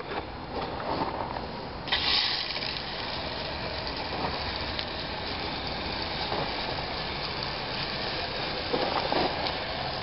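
Hose-end spray gun spraying coil cleaner and water onto an outdoor heat-pump condenser coil: a steady hiss of spray that gets much louder about two seconds in.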